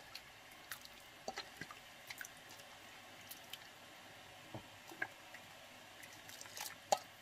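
Faint wet squishing and scattered light clicks of a utensil stirring broth into a sauce, with one sharper click near the end.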